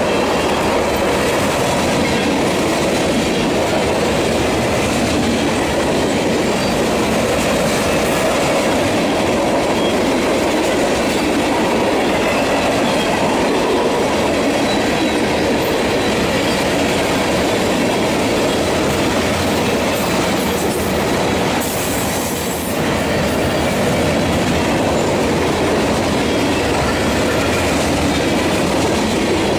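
A freight train's cars rolling past close by at steady speed: a loud, continuous rumble and rattle of steel wheels on the rails. There is a brief hiss and a slight dip in level about two-thirds of the way through.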